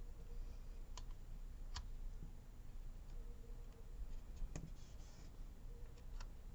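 Faint clicks and light paper rustling from handling sticker sheets and pressing stickers onto a planner page: four sharp clicks, the loudest about four and a half seconds in, with a brief rustle just after it.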